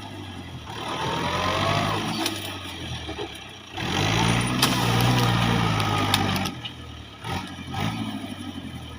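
Diesel tractor engine revving hard under load in repeated surges as it strains to pull out an old tree stump.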